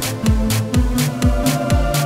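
Background electronic dance music with a steady kick drum about twice a second and hi-hat strokes between the beats.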